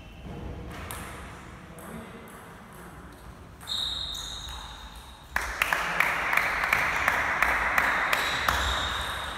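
Table tennis point: the ball clicking sharply off the bats and the table. About halfway through a louder stretch of noise sets in, with rapid clicks over it, and it fades near the end.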